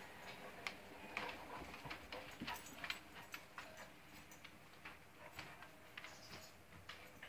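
Dogs' claws clicking on a hardwood floor as a Saint Bernard and a puppy walk about: faint, irregular light ticks, several a second.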